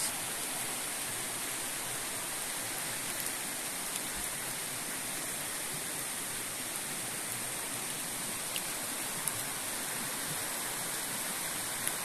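Steady rushing of a shallow forest river, an even wash of running water.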